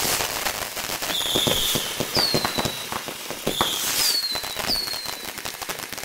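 Fireworks going off: a rapid, uneven run of pops and bangs, with about five short high whistles, most dipping slightly in pitch as they fade.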